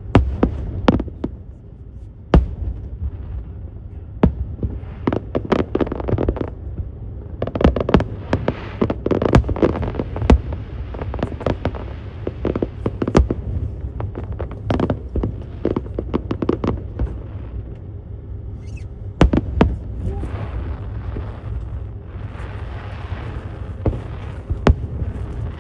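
Aerial fireworks show: shells bursting in a fast, irregular series of bangs and booms, thickest through the middle, over a steady low rumble.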